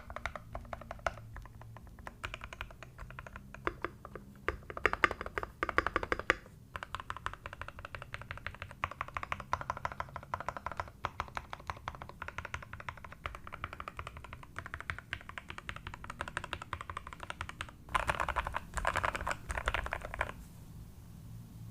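Typing on a Keydous NJ68 Max mechanical keyboard fitted with lubed C3 Equalz Tangerine 62g linear switches, foam-dampened, with lubed stabilizers: a steady run of keystrokes with two faster, louder flurries, one about five seconds in and one near the end.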